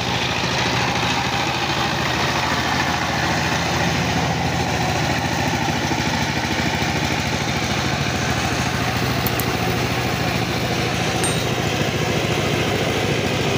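Two-wheel power tiller's single-cylinder diesel engine running steadily with a fast, even chug as the tiller works through a flooded, muddy paddy field.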